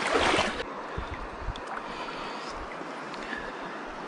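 Faint steady waterside background hiss, after a short loud rush of noise right at the start.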